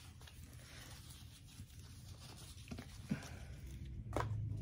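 Faint rustling and a few soft clicks from a potted plant being handled, with a low steady hum underneath.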